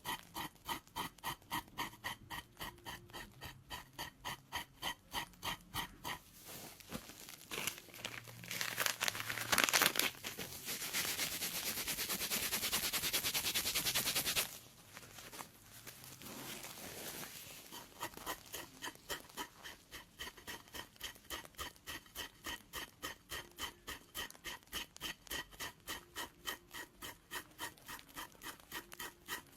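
Pedicure blade scraping thickened skin on the sole of a foot in quick, even strokes, about two to three a second. In the middle a louder steady hiss runs for several seconds and cuts off suddenly, then the scraping strokes resume.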